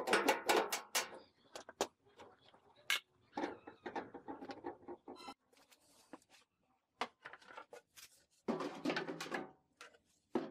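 Knocks, clicks and clatter of wooden shelf boards and tools handled against a steel oil drum: a quick run of sharp knocks in the first couple of seconds, then a burst of clattering about two-thirds of the way through.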